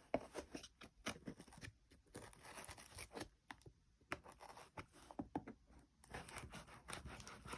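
Packaging being torn and handled during unboxing: faint, irregular tearing, crinkling and scratching sounds.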